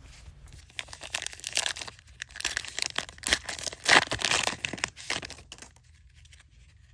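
Baseball card pack wrapper being torn open and crinkled by hand: a run of crackling tears and crinkles lasting a few seconds, loudest about four seconds in, dying away near the end.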